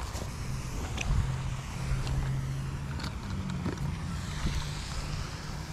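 A steady low motor hum, with a few faint clicks over it.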